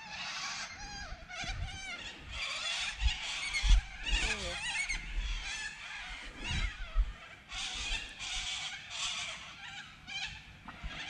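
Birds calling and chattering in a busy chorus of short, overlapping chirps and trills, with a few low thumps of handling or wind on the microphone.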